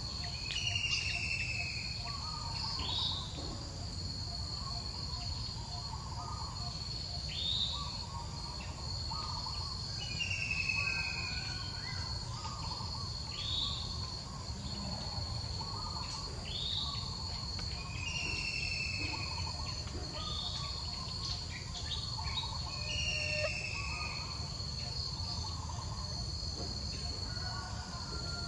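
Outdoor tropical forest ambience: insects keep up a steady high-pitched drone while a bird calls over and over, a short falling whistle every two to three seconds among other chirps, over a low steady rumble.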